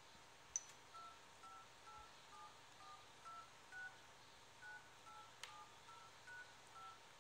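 Sony Xperia Z1 smartphone's keypad tones: about a dozen faint, short two-tone dialing beeps, roughly two a second, one for each digit tapped into the security-code keypad. They show that the damaged touchscreen still registers touches in the part of the screen that holds the digits.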